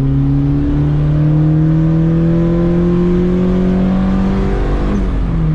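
Turbocharged Honda D16 single-cam four-cylinder accelerating hard under boost, its pitch climbing steadily for about four and a half seconds. Near the end the engine note breaks and drops.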